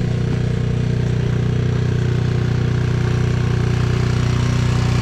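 Snow blower engine running steadily.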